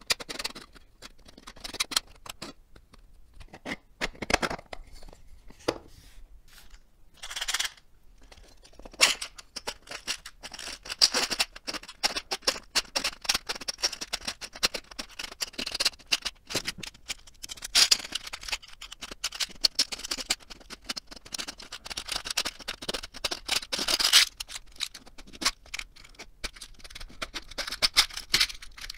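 3D-printed plastic labyrinth puzzle box being worked by hand: the maze cylinder is twisted and slid inside its plastic sleeve, giving plastic-on-plastic scraping and clicking. The clicks are sparse at first and become a long run of rapid clicking and scraping, thinning again near the end.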